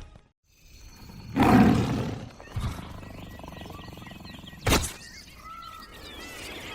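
Wildlife sounds: a short roar-like animal call about a second and a half in, a sharp knock a little past the middle, then faint bird chirps.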